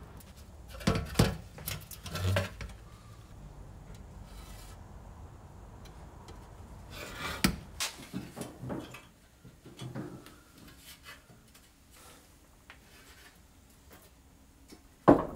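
Hands handling a sandblasted motorcycle seat pan: a few knocks and rubbing scrapes, bunched together about a second in and again around halfway. A single sharp knock comes near the end.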